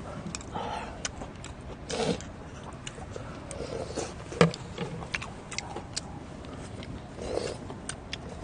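Two people eating: chewing and lip smacking, with scattered sharp clicks of spoons and chopsticks against metal rice bowls and the pan. The loudest click comes about halfway through.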